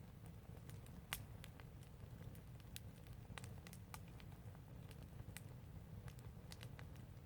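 Open fire burning, crackling with irregular sharp pops, the loudest about a second in, over a low steady rumble.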